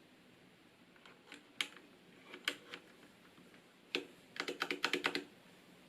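Keys on a Filco Majestouch Stingray low-profile mechanical keyboard with Cherry MX Low Profile Red switches being pressed. A few separate clicks come first, then a quick run of clacks about four seconds in.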